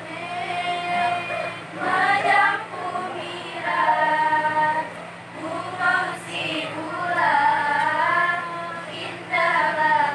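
A group of girls' voices singing a Saman dance chant together in phrases, with held notes that slide up and down in pitch.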